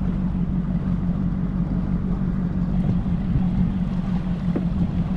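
Outboard motor of a bass boat running steadily with a constant low hum, mixed with wind and water noise as the boat moves across the lake.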